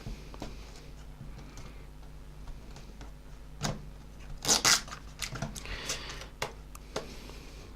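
A seal on a smartphone's cardboard box being peeled off and the box handled: scattered clicks and scrapes, with the loudest tearing rasps a little past halfway.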